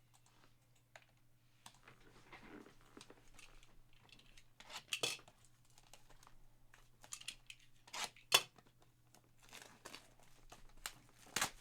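Trading-card packaging being torn open and handled: plastic and foil wrapper crinkling and rustling in short bursts, with sharper rips about 5, 8 and 11 seconds in, the one just past 8 seconds the loudest.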